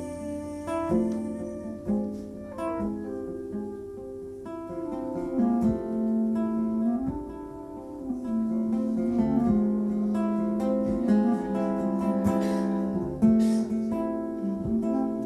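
Live acoustic jazz band playing: acoustic guitar picking, with clarinet and acoustic bass.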